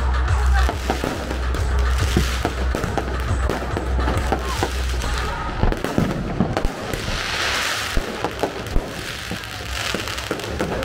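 Fireworks going off: many sharp pops and crackles, over a low rumble that stops about six seconds in, with a burst of crackling hiss around seven seconds.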